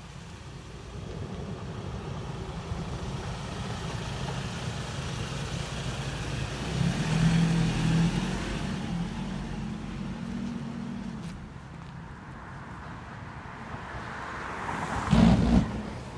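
Royal Enfield Continental GT 650's parallel-twin engine running, heard close to the engine and exhausts. The revs swell for a few seconds about seven seconds in, and a short louder burst follows near the end.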